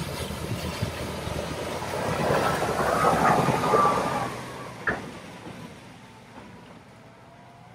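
A vehicle driving through deep flood water past the microphone. The engine and the wash of water swell to a peak about three to four seconds in, then fade away. There is one sharp knock about five seconds in.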